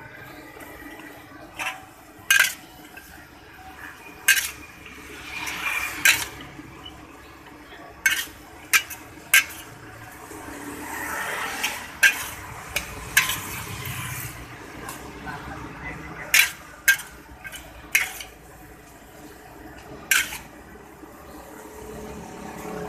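Metal spatula scraping and clanking against a large wok as fried noodles are stir-fried and tossed. About a dozen sharp, irregular clanks fall between stretches of scraping.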